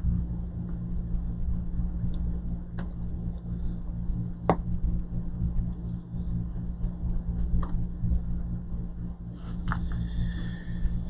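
A steady low hum with a few small, sharp clicks, the loudest about halfway through: small repair tools touching an iPhone's screws and parts.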